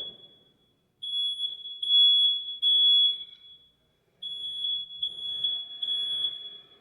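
Smoke alarm sounding its piercing high-pitched beep in groups of three long beeps with a short pause between groups, the three-beep pattern of a smoke alarm in full alarm.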